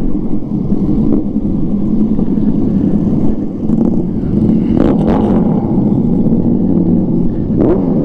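A vehicle engine running at a steady pitch while on the move, with a short rush of noise about five seconds in.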